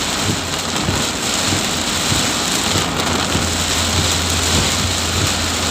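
Heavy rain pouring down steadily as a dense, even hiss. A low steady rumble joins in about halfway through.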